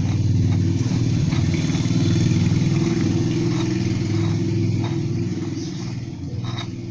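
An opened electric hand drill running, its motor and reduction gears turning with a steady mechanical drone and a few sharp clicks. It gets quieter from about five seconds in.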